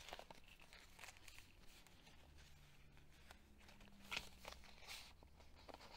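Faint rustling and crinkling of handmade journal pages and paper flaps being lifted and turned by hand, with a slightly louder rustle about four seconds in.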